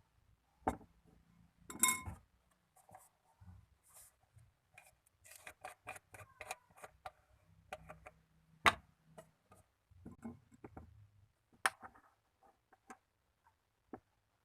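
Slime being handled and poked: scattered sticky clicks and small pops, with a quick run of clicks in the middle and a few sharper single clicks.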